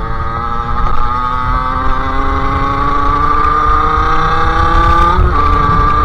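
Sherco SM-R 50's 50cc two-stroke engine with a KRM exhaust pulling under throttle while riding. Its pitch climbs steadily, drops sharply at a gear change about five seconds in, then climbs again.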